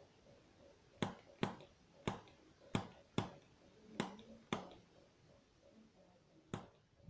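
Chiropractic activator adjusting instrument, a spring-loaded handheld device, firing sharp single clicks as it delivers thrusts in a neck adjustment. About seven clicks come at irregular half-second intervals, then after a pause of about two seconds two more follow near the end.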